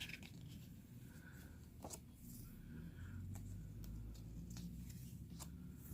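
Faint rustling and a few light clicks of a photo book's paper pages being handled.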